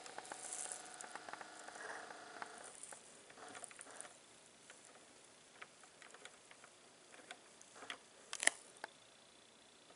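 Stylus of an Ortofon cartridge tracking the lead-in groove of a vinyl record. Faint surface crackle with scattered small clicks, and one louder pop about eight and a half seconds in.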